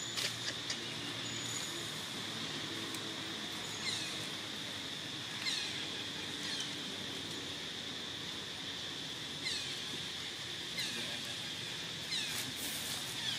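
A steady high insect drone, with short, high chirps that fall in pitch every few seconds and light rustling of dry leaves as macaques move over them.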